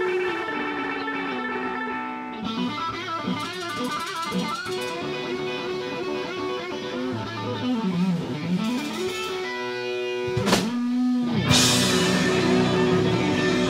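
Electric guitar playing a lead line, with notes bent and slid up and down in pitch. Near the end the music gets louder and fuller.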